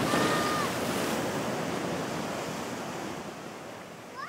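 Ocean surf breaking on a rocky shore: a wave crashes at the start and its wash slowly fades away.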